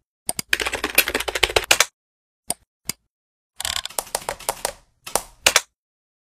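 Computer keyboard typing in three quick bursts of keystrokes, with two single key taps between them.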